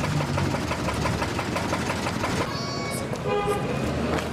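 Diesel engine of a wheeled loader running with a fast, even rattle. A voice calls out briefly just past the middle.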